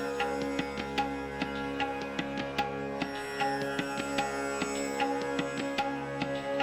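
Instrumental background music: many short plucked and struck notes over steady held drone tones, in an Indian classical style.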